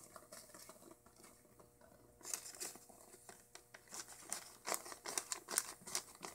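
Damp newspaper crinkling and rustling under a hand as it is pressed and smoothed down over worm-bin bedding, in short irregular crackles that start about two seconds in.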